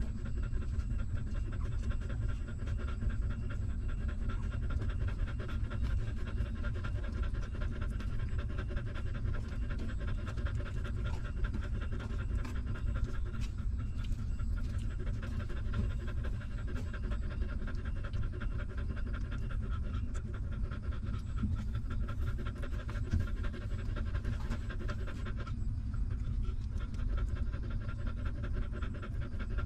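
Nursing mother dog panting quickly and steadily close by, with a constant low rumble underneath.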